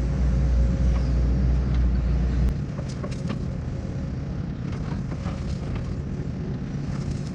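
John Deere 135G excavator's diesel engine running steadily. About two and a half seconds in, its deep drone drops away, leaving quieter running with a few scattered clicks and knocks.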